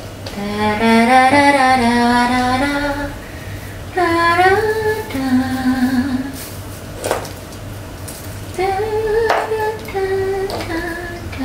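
A woman singing a slow tune on her own, in a few phrases of long held notes, with no instruments behind her. A short knock comes about seven seconds in.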